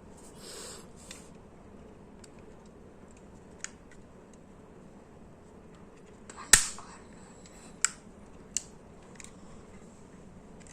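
Sharp plastic clicks of a Vega 3-in-1 hair styler's plates snapping shut and being handled while straightening hair, a handful of single clicks with the loudest about six and a half seconds in. A short soft rustle of hair is heard under a second in.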